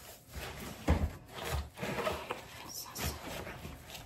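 A spatula stirring and scraping snow cream (snow mixed with milk and sugar) in a plastic mixing bowl: irregular scraping strokes with a few dull knocks against the bowl.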